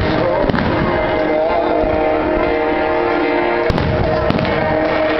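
Aerial firework shells bursting, with sharp bangs about half a second in and twice near the end, over steady music with held tones.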